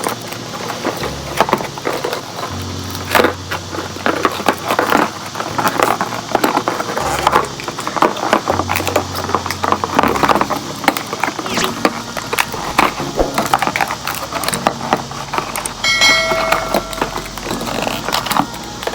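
Rustling, crinkling and clicking of cardboard and plastic packaging as a boxed set of outdoor LED string lights is unpacked by hand. A brief tone with several pitches sounds near the end.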